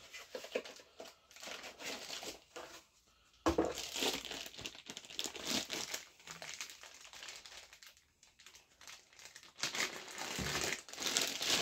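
Clear plastic bag crinkling and rustling in the hands as an 18 V power-tool battery is unwrapped from it. The crinkling comes in irregular bouts, loudest about three and a half seconds in and again near the end.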